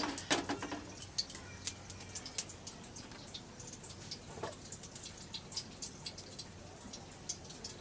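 Oil heating in a kadai over a gas flame, giving faint, scattered crackles and pops. The oil is reused fish-frying oil.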